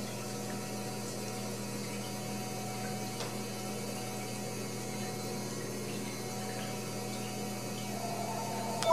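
Steady low electrical hum with an even hiss of room noise behind it and a faint tick or two. Near the end, steady tones begin to swell in.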